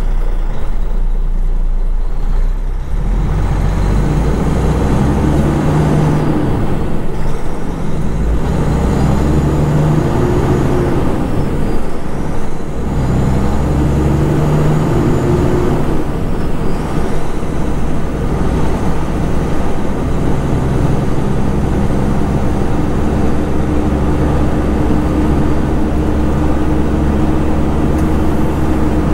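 Kenworth road-train prime mover's diesel engine accelerating, its pitch climbing and dropping back about three times in the first half as it shifts up through the gears, then running steadily at cruising speed.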